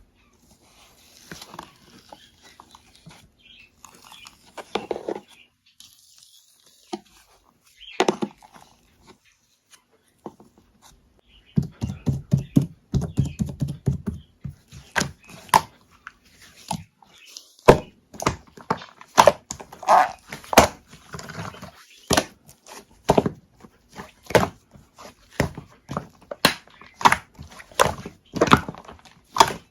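Milk-foam slime being squished and pressed by hand, making irregular sticky clicks and pops; it is sparse and soft at first, then a run of frequent sharp pops begins about twelve seconds in.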